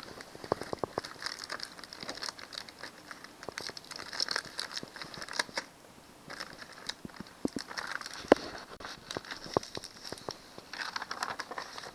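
Paper template crinkling and rustling as it is handled and peeled off a plastic cutting board, in on-and-off bursts with a few sharp taps and clicks.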